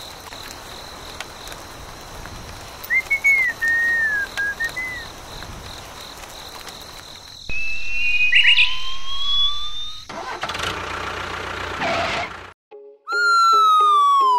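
A string of added sound effects: a few short chirps, then a rising whistle tone, a burst of noise, and, after a sudden cut to silence, a long falling whistle over a steady hum.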